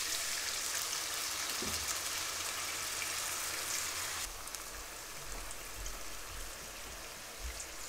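Chicken strips and garlic sizzling in butter and oil in a hot skillet, an even hiss that quiets a little just past four seconds in.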